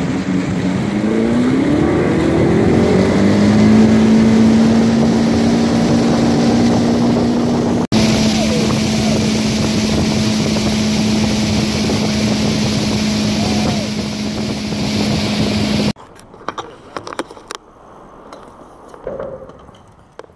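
Motorboat's engine running with heavy wind and water rush. Its pitch rises over the first few seconds as it speeds up, then holds steady. About 16 seconds in it cuts off abruptly, leaving quiet scattered clicks and knocks.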